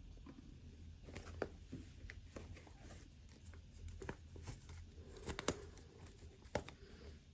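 Small plastic toy pieces and packaging being handled: light clicks, taps and rustles, with a few sharper clicks about a second and a half in, around the middle and near the end.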